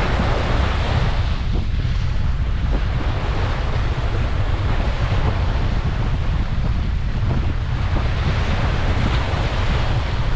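Ocean surf washing onto a beach in a continuous, gently swelling rush, with wind buffeting the microphone as a steady low rumble underneath.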